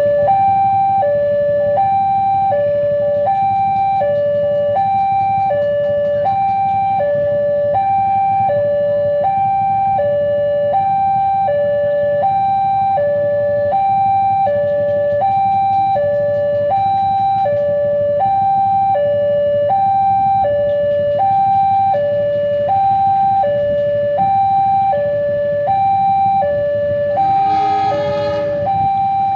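Railway level-crossing warning alarm sounding: an electronic two-tone signal alternating evenly between a lower and a higher tone, each held about three-quarters of a second. Near the end a train horn blows for about a second.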